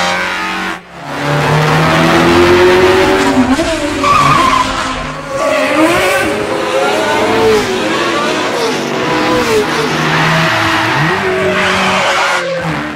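Race car engines running hard at high revs on a film soundtrack, their pitch sweeping up and down as the cars accelerate and pass, with a short dip about a second in.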